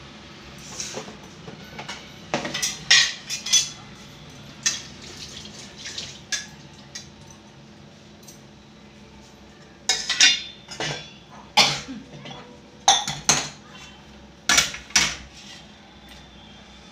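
Steel kitchen utensils clinking and clattering: a string of sharp metallic knocks, a few about two to five seconds in and a denser run from about ten to fifteen seconds in.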